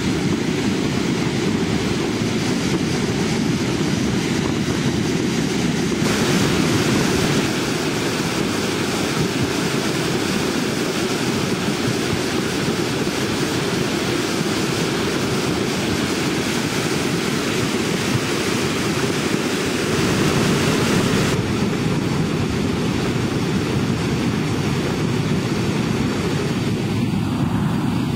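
Mountain torrent in flood, its muddy water carrying stones and debris down the channel: a loud, steady rush with a deep rumble beneath, its tone shifting slightly about six seconds in and again about twenty-one seconds in.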